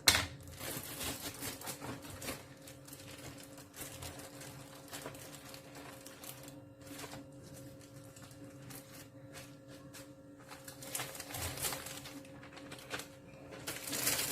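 Plastic freezer bags crinkling and rustling as they are handled and filled, with irregular small clicks, a sharp knock at the very start and a faint steady hum underneath.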